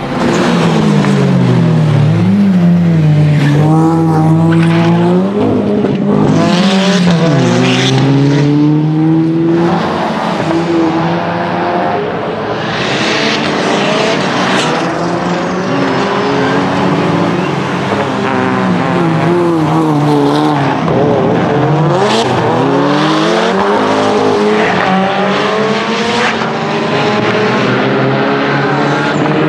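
The Lancia Delta HF Integrale EVO Proto's turbocharged 2.0-litre four-cylinder engine, tuned to over 500 hp, revving hard and climbing in pitch, then dropping sharply with quick sequential-gearbox shifts, over and over as the car accelerates and brakes.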